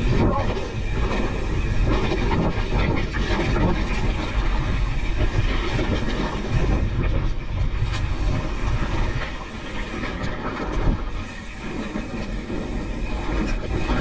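Pivot Switchblade full-suspension mountain bike descending a dry dirt trail: continuous rattling of the bike and tyres crunching over dirt and small stones. It dips a little in level for a couple of seconds past the middle.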